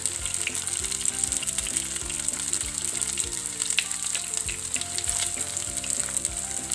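Rice cutlets shallow-frying in hot oil in a pan: a steady sizzle with scattered small pops and crackles.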